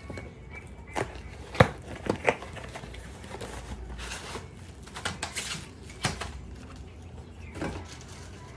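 Knocks and clunks of a cardboard box and a bubble-wrapped parcel being handled and set down on a cloth-covered counter. The loudest knock comes about one and a half seconds in, followed by a few softer taps and rustles later on.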